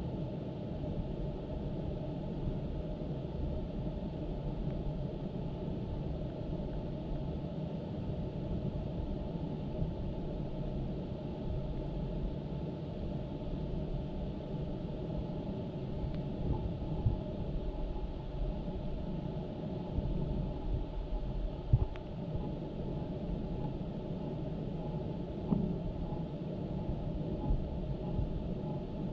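Steady low rumble and noise, with a few faint knocks and no clear voices or sounds of play. This is a defect in the recording's audio.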